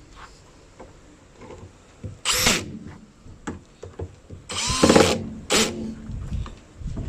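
Cordless power drill driving in the bolts of a washing machine's drum cover, in three short bursts whose pitch rises as the motor spins up, with a longer run starting at the very end. Light clicks and handling noises come between the bursts.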